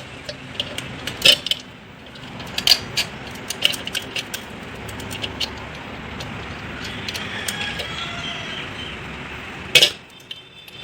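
Irregular metallic clinks and rattles of steel rods and bolts being handled and fitted together, with one sharp clank near the end.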